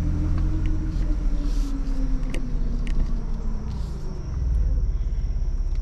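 2021 Ford Bronco's engine running under light throttle as it crawls along a dirt trail, heard from inside the cab: a low drone whose pitch rises a little and then falls away, with a few light knocks and clicks from the vehicle about two to three seconds in.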